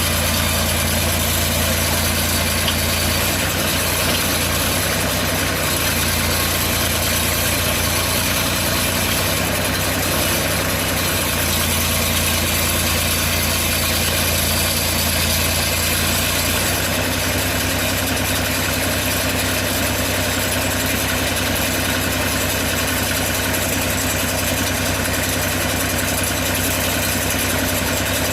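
Engine of a portable bandsaw sawmill running steadily, its low hum shifting slightly a few times.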